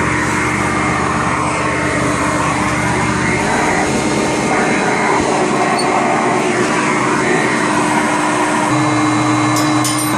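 Hoover Conquest direct-air vacuum cleaner running steadily with a constant hum. Its deepest bass drops away about three and a half seconds in and comes back near the end.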